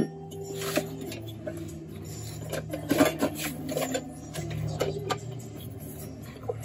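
Scattered clicks, light knocks and rattles of a diesel air heater's plastic casing and metal mounting parts being handled and set in place on a van floor, over a low steady hum.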